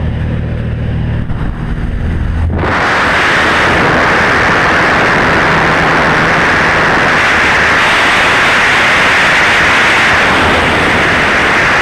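Steady engine drone inside a high-wing light aircraft's cabin; about two and a half seconds in the door is opened and a loud, steady rush of wind in flight floods the cabin, drowning the engine.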